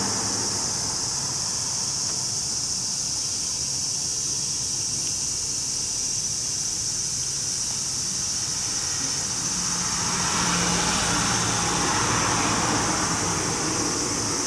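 Steady high-pitched insect chorus, like crickets, trilling without a break. A lower hum swells about ten seconds in and fades again.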